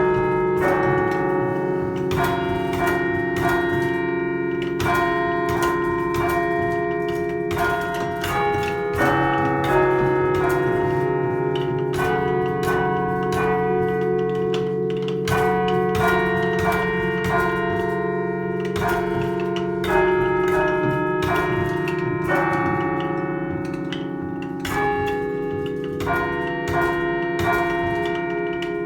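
A chime of thirteen Taylor-cast church bells, tenor about 1.5 tonnes in C, chimed: struck one at a time in a steady run of notes at changing pitches, about two strokes a second. Each note rings on over a sustained low hum from the bigger bells.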